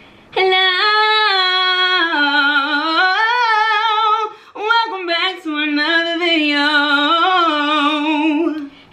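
A woman singing alone without accompaniment, holding long notes with vibrato, with a short break for breath about four seconds in.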